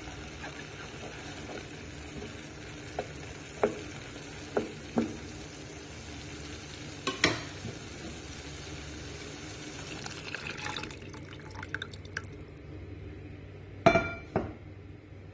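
Ground meat and onions sizzling in a stainless steel pot while a wooden spatula stirs them, knocking against the pot several times. The sizzle thins out a few seconds before the end, and two loud knocks come near the end.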